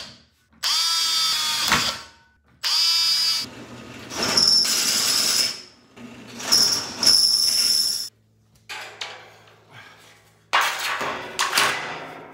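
Cordless drill boring through steel angle in two short bursts, its motor whine steady within each. It is followed by a drill press cutting steel, with a thin high squeal from the bit and the steady hum of its motor.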